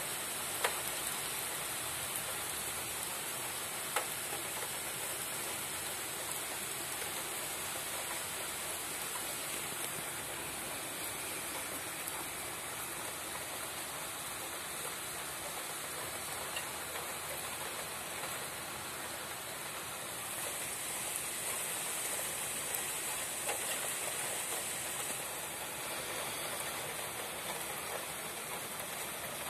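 Steady downpour of heavy rain during a thunderstorm, an even hiss with no thunder, and two sharp ticks, about a second in and about four seconds in.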